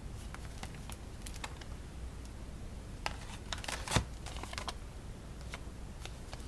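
Light taps and clicks of a cardboard playing-card box being handled and turned over in the fingers, with a few quick clusters and one louder tap about four seconds in.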